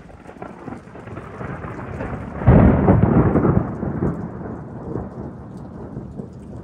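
Thunder from a lightning strike: a rumble that builds steadily, peaks loudest about two and a half seconds in, then rolls on and slowly dies away.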